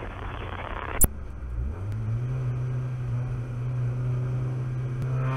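Mazda Miata race car's four-cylinder engine heard from inside the cockpit, running steadily at low pace-lap speed; about two seconds in its pitch steps up and holds after a downshift from third to second gear. Over the first second there is a brief hiss that ends in a sharp click.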